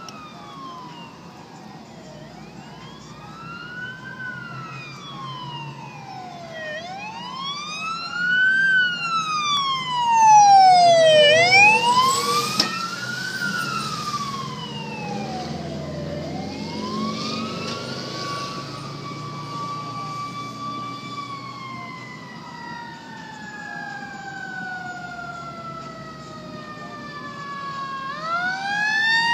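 Federal Signal sirens on a fire ladder truck, engine and rescue truck wailing together, their pitches sweeping up and down and overlapping. They grow louder about ten seconds in; later one falls slowly in a long sweep, then winds quickly back up near the end.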